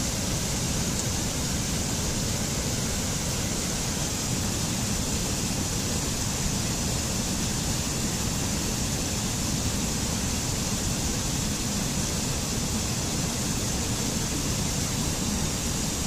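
Mountain stream rushing and splashing over rocks in small cascades: a steady, unbroken roar of water.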